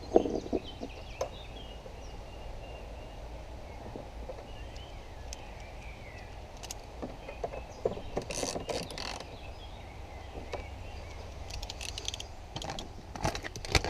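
Scattered small clicks and taps of a screwdriver and parts as a small T20 Torx screw is fitted and driven in by hand, with a brief rustle about halfway through and more clicks near the end. Faint birds chirping and a steady low hum behind.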